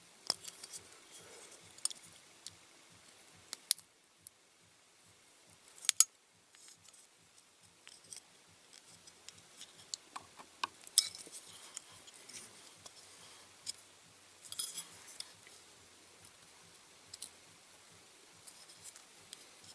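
Sharp little clicks and clinks of a diecast toy car's metal and plastic parts being handled and prised apart, one every second or few, with a louder click about six seconds in and another about eleven seconds in.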